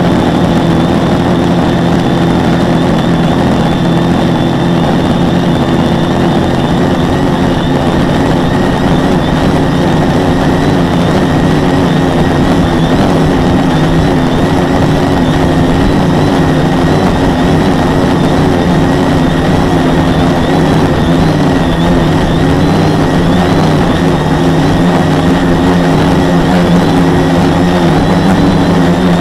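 Four Multistar 2212 920kv brushless motors spinning 10x4.5 propellers on a quadcopter in steady flight, heard from a camera mounted on the frame: a loud, steady drone of several tones over a rushing noise, with no breaks.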